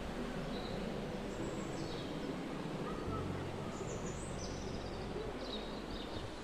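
Steady rush of falling water from a waterfall, with small birds chirping in short high notes several times over it.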